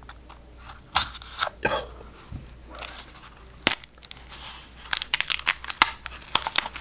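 Paper and card packing being unfolded and handled by hand: irregular crinkling and crackling with several sharp snaps.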